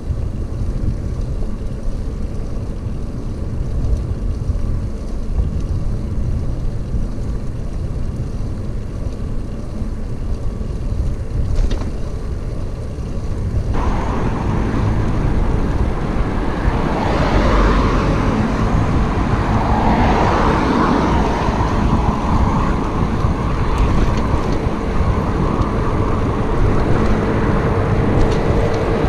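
Wind buffeting the microphone of a camera on a moving bicycle, a steady low rumble. About halfway through, road traffic passing close by joins in and the sound grows busier.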